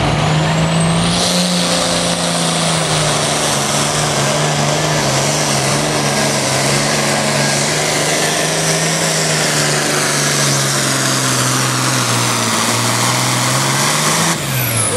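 Diesel pulling tractor at full throttle dragging a weight-transfer sled. A high whistle climbs over the first second, then the engine note holds and slowly sags under the load, dipping and wavering near the end.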